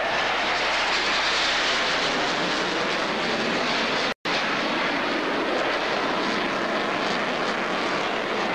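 F-14 Tomcat fighter's twin jet engines making a loud, steady rushing roar as it makes a high-speed banking pass. The sound briefly cuts out for a split second a little past the middle.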